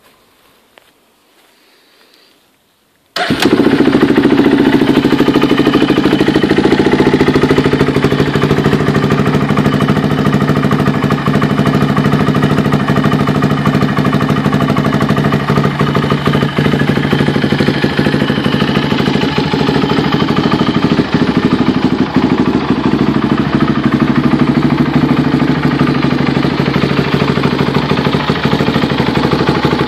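Polaris Outlaw 500 quad's single-cylinder four-stroke 500 cc engine, fitted with a Marving aftermarket exhaust, comes in suddenly about three seconds in and then runs at a steady idle.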